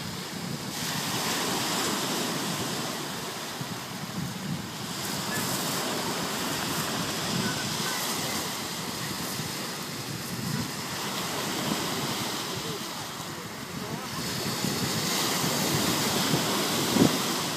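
Black Sea surf washing onto the shore in swells that rise and fall every few seconds, with some wind on the microphone.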